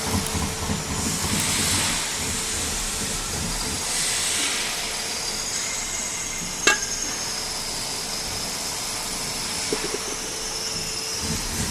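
Steady workshop background noise, a hiss with a faint hum under it, with a single sharp metallic click about two-thirds of the way through and a couple of light ticks near the end.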